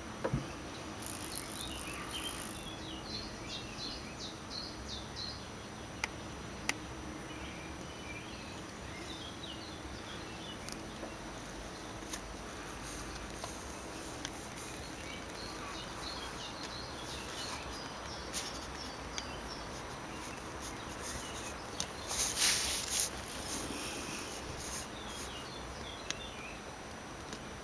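Outdoor background ambience with many faint, scattered high chirps of small animals, insects or birds, over a steady hiss. A few sharp clicks come about 6 and 7 seconds in, and a short louder hiss burst comes near the end.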